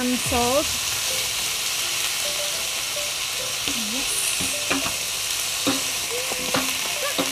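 Chicken, onions and garlic sizzling in olive oil in a wok, stirred with a wooden spatula that knocks and scrapes against the pan now and then.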